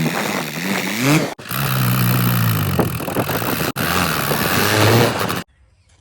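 Vehicle engines revving, their pitch rising and falling, heard in short clips joined by abrupt cuts; the sound drops off suddenly to a faint background near the end.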